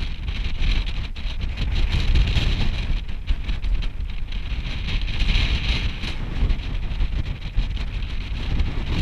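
Wind buffeting a body-worn action camera's microphone: an uneven low rumble with a hiss over it, mixed with small scuffs as hands and boots move over rock.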